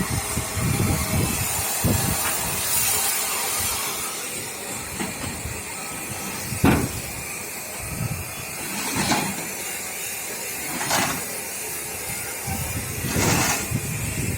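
Steel reinforcement rods being handled: a few sharp metal knocks spaced a couple of seconds apart over a steady hiss.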